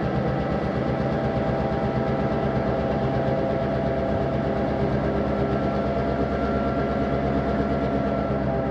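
Diesel locomotive engine running steadily at constant speed, a continuous even drone with a fine low pulsing and steady hum tones.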